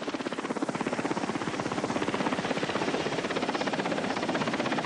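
Helicopter in flight, its rotor blades beating in a rapid, even chop that builds a little over the first two seconds, then holds steady.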